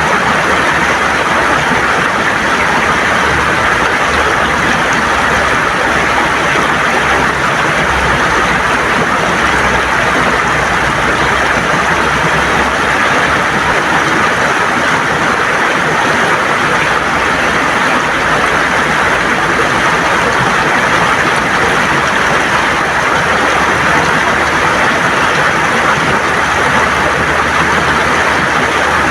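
Shallow river water gurgling over stones, a steady, even rush of running water.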